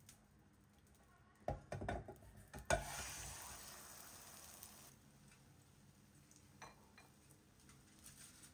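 A frying pan and plate knocking and clattering on a gas hob as a potato-and-egg Spanish omelette is turned over. Then a burst of sizzling as the uncooked side slides into the hot oil, fading over about two seconds.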